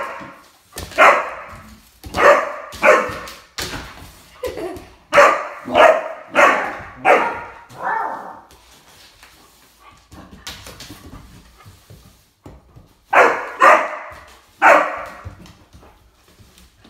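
Dog barking at a broom being swept across the floor: a quick run of about ten loud, short barks, a pause of several seconds, then three more barks.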